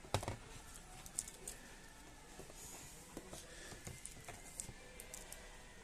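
Plastic wrapping crinkling and rustling as a boxed speaker is handled, with a sharp knock just after the start and scattered small clicks and taps.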